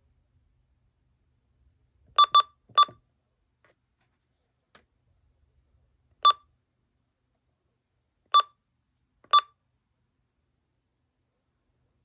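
Uniden weather radio's keypad beeping as its buttons are pressed: six short beeps of the same pitch, three in quick succession about two seconds in, then three single beeps a second or two apart.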